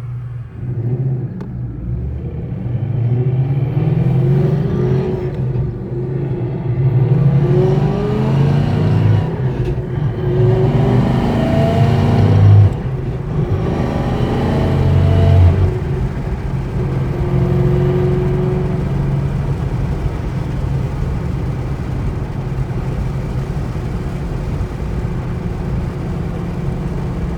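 2012 Ford Mustang Boss 302's 5.0-litre V8 accelerating, engine pitch rising through each pull and dropping at the gear changes, then settling to a steady cruise about sixteen seconds in. Heard from inside the car on a gentle test drive after a crank relearn, checking for recurring random misfires.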